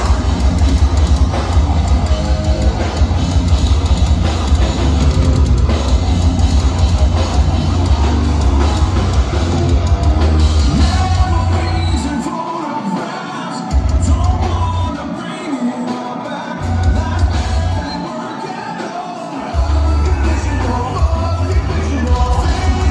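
A heavy metal band playing live at full volume, with distorted guitars, bass and drums under a male singer who sings and yells. In the second half the low end of bass and kick drum drops out three times for a second or two, leaving guitar and voice, then the full band comes back. It is heard from among the crowd in a large club hall.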